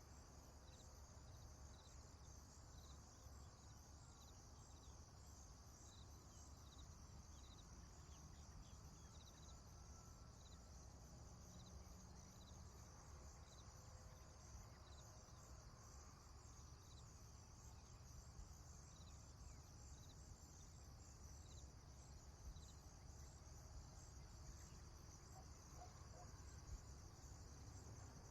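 Prairie ambience, faint: a steady high chorus of insects with a cricket chirping about once a second, the chirps fading out after the middle, over a low rumble.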